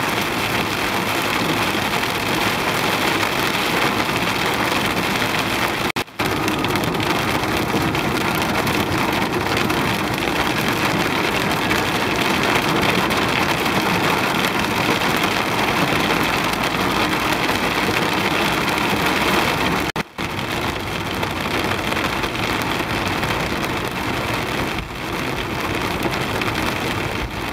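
Heavy storm rain pelting a moving car's windshield and roof, heard from inside the car as a steady dense noise. It drops out for an instant twice, about six and twenty seconds in.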